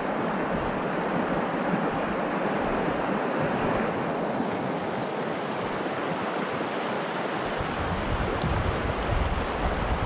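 Steady rush of a river running over rapids. Wind buffets the microphone with a low gusty rumble over the last couple of seconds.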